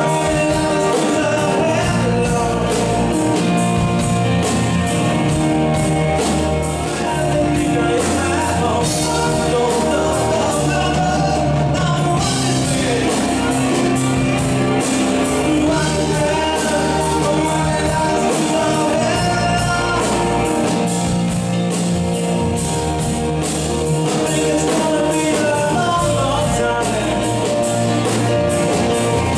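A live rock band playing a song: grand piano, drum kit, bass and electric guitars, with a man singing lead from the piano.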